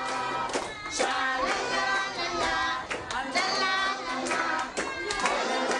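A group of children and young people singing together, with hands clapping along.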